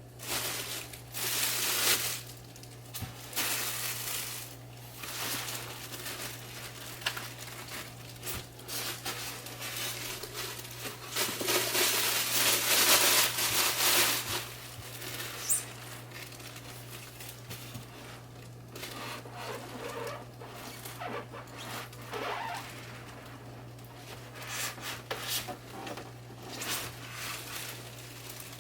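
Packaging being handled and unwrapped: plastic and foam rustling and crinkling in irregular bursts, loudest about halfway through, over a steady low hum.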